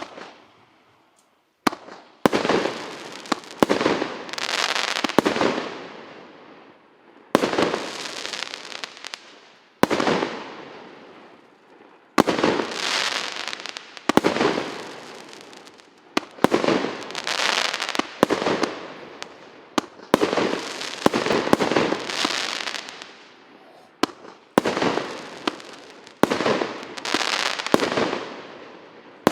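P7700 'Ded Moroz' firework battery (cake) firing shot after shot: a sharp bang every second or two, each followed by a second or more of dense crackling from its crackling-star effects.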